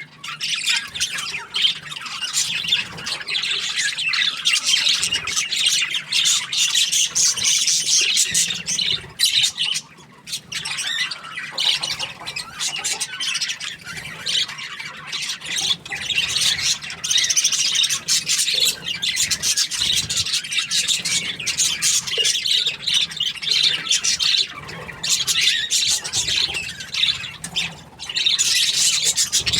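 Budgerigars chirping and chattering in a dense, continuous stream of high, rapid calls, broken by a few brief pauses.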